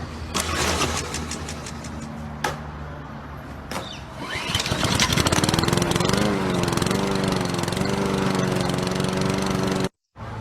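Small petrol lawn mower engine being started: uneven sputtering with clicks, then it catches with a rising pitch about four and a half seconds in and runs steadily and louder. It cuts off abruptly near the end.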